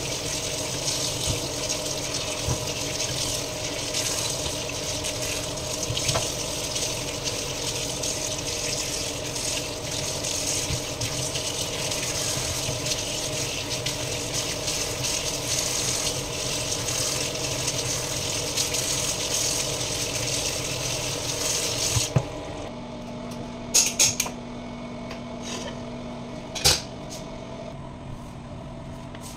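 Kitchen tap running steadily into a stainless steel sink as hands wash raw chicken under the stream. The water shuts off suddenly about three quarters of the way through, followed by a few sharp clatters.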